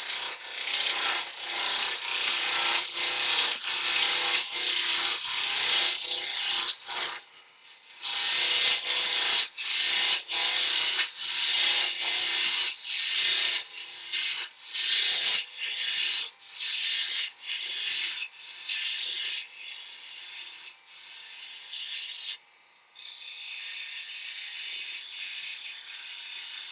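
A turning tool roughing a square blank of spalted wood down to the round on a lathe, making a rapid rattling, chattering cut as it strikes the spinning corners. The cut pauses briefly about seven seconds in and again near the end. In the last few seconds it turns to an even hiss as the blank comes round.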